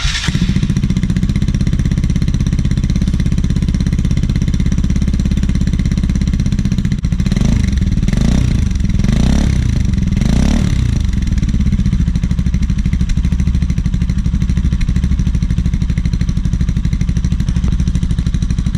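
Kawasaki Rouser RS200's single-cylinder engine idling loudly through its exhaust, blipped four times in quick succession about seven to eleven seconds in, then settling back to idle.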